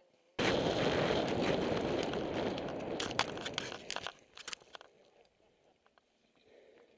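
Mountain bike riding down a rough dirt trail: a loud rush of wind and tyre noise on a helmet-mounted camera. It starts suddenly about half a second in and cuts off about four seconds in, with a few sharp clicks near the end.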